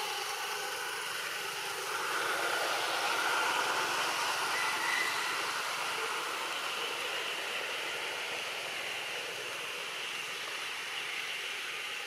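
Steady, broad outdoor background hiss with no clear animal calls, swelling a little between about two and five seconds in.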